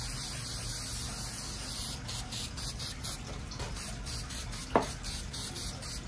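Aerosol can of mink oil spraying onto a suede sneaker: a steady hiss for about two seconds, then a series of short spurts. One short squeak sounds near the end.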